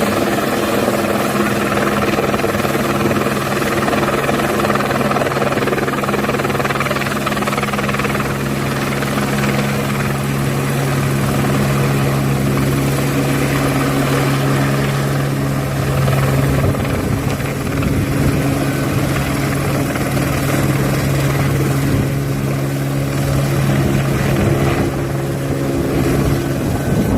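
Helicopter running close by: a loud, steady drone of engine and rotor with a low hum and stacked overtones. Its tone shifts slightly about halfway through.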